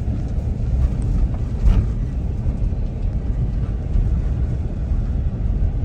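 Vehicle driving along, a steady low rumble of engine and road noise heard from inside the vehicle.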